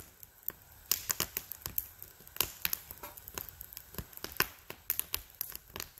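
Small fatwood and twig fire crackling in a folding metal twig stove, with irregular sharp pops and snaps.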